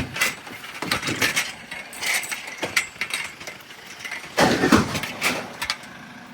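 Scrap metal being handled and loaded: irregular clanks and knocks, the loudest clatter about four and a half seconds in.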